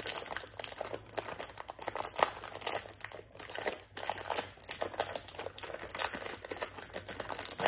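Plastic cookie wrapper crinkling and crackling irregularly as it is handled and torn open by hand.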